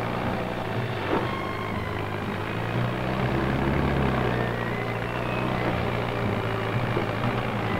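Case crawler bulldozer's engine running steadily as a low, even drone while the dozer pushes through brush.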